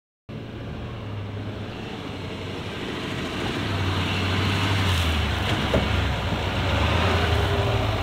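Duramax turbo-diesel V8 of a GMC Sierra Denali HD pickup running at low speed as the truck crawls over dirt, growing louder as it comes closer.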